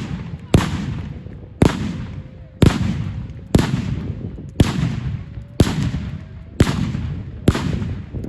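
Fireworks going off in a steady run of loud bangs, about one a second, each followed by a long rumbling echo.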